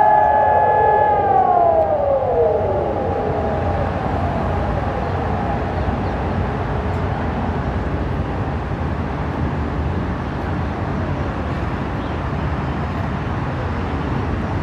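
Several Hörmann electronic civil-defence warning sirens end their steady alert tone. The tones slide down in pitch and fade out one after another over the first few seconds, and fainter sirens that shut off late trail away later, which points to malfunctioning sirens. A steady low background rumble is left.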